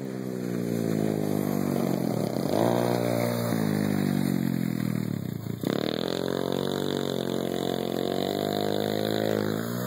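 Small youth ATV engine running under throttle as the quad rides past, its pitch climbing and sagging; just past halfway the pitch drops sharply, then climbs again.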